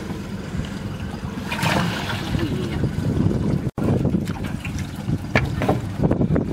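Water trickling and splashing as a large fish is handled over a water tub, then, after a cut, the rustle and small clicks of a wet cast net being picked through, over a low steady rumble of wind on the microphone.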